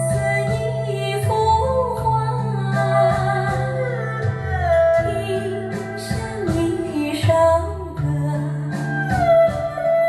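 A song with a singing voice over instrumental accompaniment and a steady bass line, played back through JM Lab Mezzo Utopia loudspeakers driven by a Splendid Audio KL08 valve integrated amplifier, heard in the listening room.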